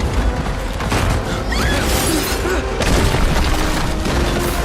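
Film sound effects of earthquake destruction at the dam: dense, continuous deep booms and crashing, mixed with dramatic film score.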